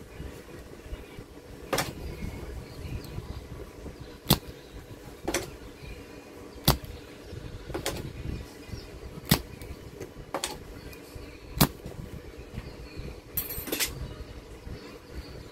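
Spring-loaded desoldering pump (solder sucker) being cocked and fired over circuit-board joints to suck up molten solder: sharp plastic snaps about once every second or so, nine or so in all, with a short crackle near the end.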